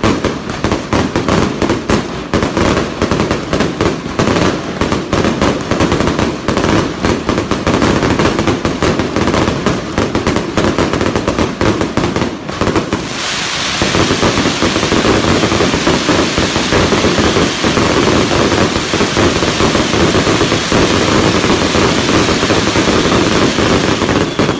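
Fireworks barrage: a rapid, overlapping stream of bangs and crackles that, about halfway through, thickens into an unbroken wall of crackling and hiss.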